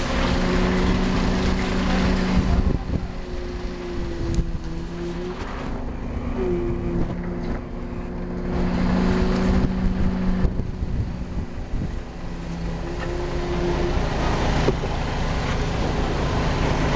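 An engine running steadily, its low hum wavering and dipping slightly in pitch a few times, over a continuous rumbling noise.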